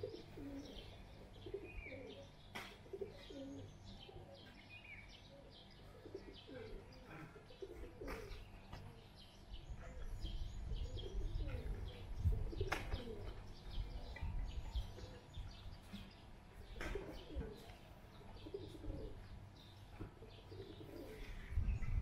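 Pigeons cooing repeatedly with small birds chirping over them. A few sharp clicks and low rumbles come through, loudest about halfway through.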